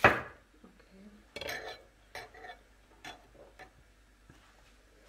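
A metal spoon and small ceramic serving dishes clinking and knocking on a stone countertop. One sharp clink at the start is the loudest, followed by several softer clatters over the next few seconds.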